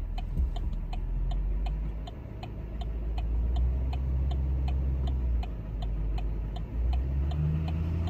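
Vehicle flasher clicking steadily, about three clicks a second, over the low rumble of the truck's idling engine inside the cab. The engine rumble swells about two and a half seconds in as the truck creeps forward.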